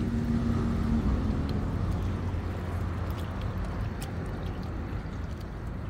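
Steady low rumble of wind and sea along a rocky shore. A steady engine hum fades out about two seconds in, and a few faint ticks sound.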